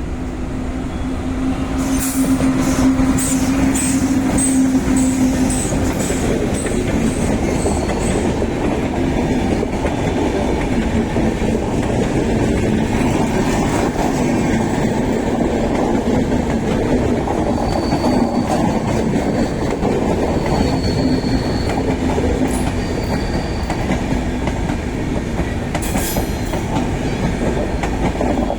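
Shatabdi Express passenger train running through the station at speed without stopping: a steady heavy rumble of passing coaches, with wheels clicking over rail joints and short high-pitched wheel squeals.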